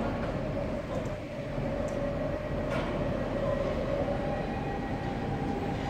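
A Stadler FLIRT 3 electric multiple unit standing at the platform, its onboard electrical equipment humming steadily with a clear tone that steps up in pitch about four seconds in. A faint click comes near the middle.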